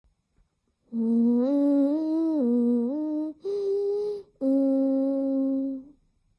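A voice humming a short tune in three phrases. The first wavers up and down, the second is a brief higher note and the last is a long held lower note.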